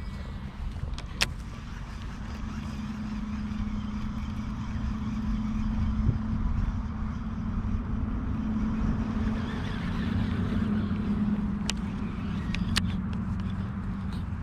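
Steady rumble of road traffic, building over several seconds and easing off again, with a few sharp clicks.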